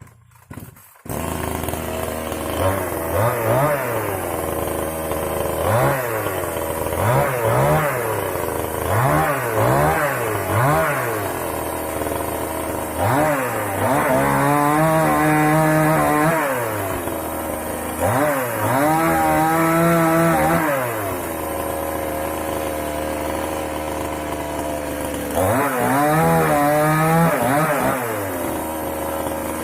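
Moto Yama two-stroke chainsaw engine starting up about a second in, then idling and blipped up in a string of quick revs. It is then run up and held at high revs three times for a few seconds each, dropping back to idle in between.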